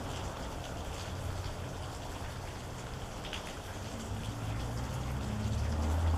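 Steady rain with scattered individual drops ticking, and a low rumble that builds in the last couple of seconds.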